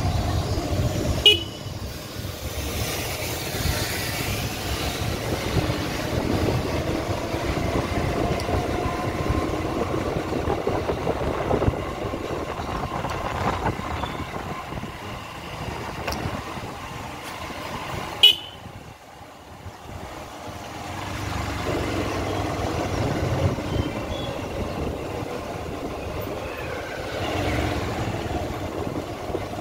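Busy street traffic with vehicle horns honking over running engines. Two sharp knocks stand out, one about a second in and one past the middle, the second followed by a brief lull.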